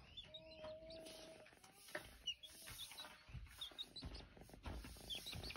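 Faint, high-pitched chirping of small birds: short peeps, several a second, scattered throughout, with a steadier lower note for about a second near the start and a couple of soft clicks about two seconds in.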